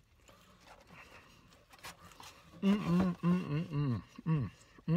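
A man chewing a mouthful of sandwich, faint and soft at first. About halfway through he starts a run of short, pitched closed-mouth voice sounds, a string of 'mm' hums with his mouth full, which is the loudest thing here.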